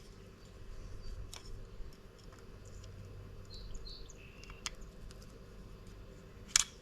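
Small metal parts handled on the bench, a piston ring and feeler gauge being set up for an end-gap check: a few faint clicks and one sharper click near the end, over a steady low hum. A couple of short, high bird-like chirps come about halfway through.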